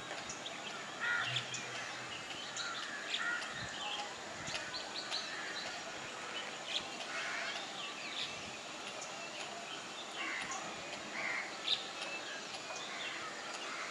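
Wild birds calling over steady outdoor background noise: a busy, overlapping mix of short chirps and harsher, crow-like calls throughout.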